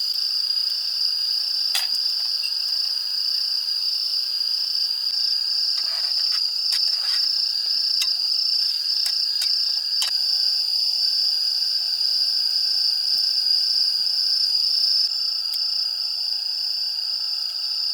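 Crickets chirping in a steady, fast-pulsing trill, with a few sharp clicks scattered through the first half.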